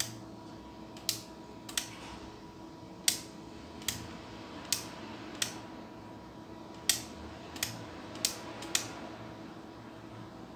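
Toggle switch on a handheld RC transmitter flipped back and forth, about eleven sharp clicks at uneven intervals; each flip of the channel switch turns the LED lights on or off. A faint steady hum runs underneath.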